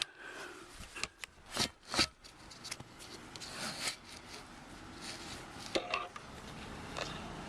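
Seatbelt webbing being pulled by hand out through the hole in a car's rear seat back: rubbing and rustling of the strap against plastic trim, with a few sharp clicks and knocks, two close together about two seconds in and another near six seconds.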